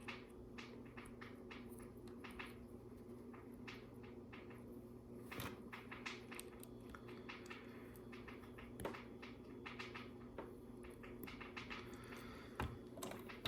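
Faint, scattered clicks and taps of small LEGO plastic pieces being sorted and pressed onto a plate, over a low steady background hum.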